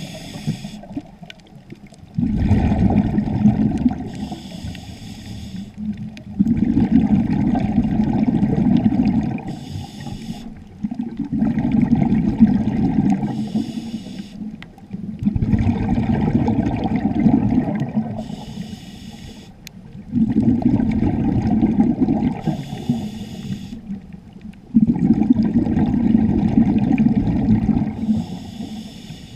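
Scuba diver breathing through a regulator underwater: each breath a short hiss on the inhale, then a longer low rumble of exhaled bubbles. About six breaths, one every four to five seconds.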